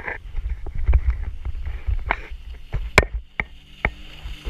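Low, uneven rumble of wind and water on a jet ski, with a run of sharp knocks from water slapping the hull. Near the end the faint steady drone of another jet ski's engine comes in as it approaches.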